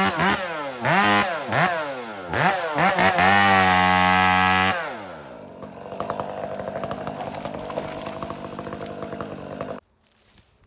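Chainsaw engine revved in repeated bursts, its pitch swooping up to full throttle and back down several times, then held high before winding down to a quieter idle about five seconds in. The sound cuts off abruptly near the end.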